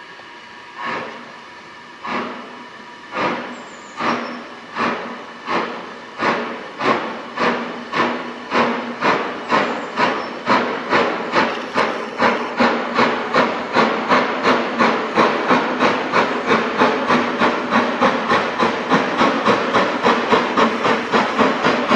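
BR Standard Class 4 4-6-0 steam locomotive 75069, a two-cylinder engine, working away with its exhaust beats. The beats quicken steadily from about one a second to about three a second and grow louder as it accelerates and comes closer.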